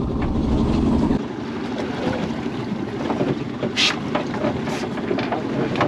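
Wind buffeting the microphone over sea and boat noise on a small fishing boat. For about the first second a heavy muffled rumble of the camera rubbing against clothing covers it. Near the middle come a few small knocks and two short hisses.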